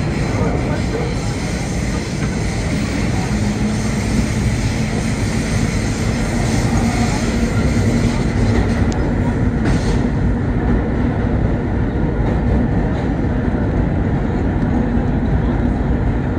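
Vintage R1/9 subway train running on the rails, heard from inside the front car: a dense, steady rumble of wheels and car body. A steady low hum joins about three seconds in, and a high hiss drops away about ten seconds in.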